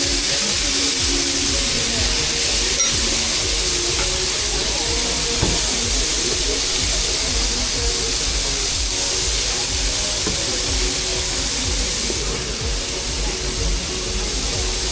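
Background music with a melody in short held notes, over a steady hiss.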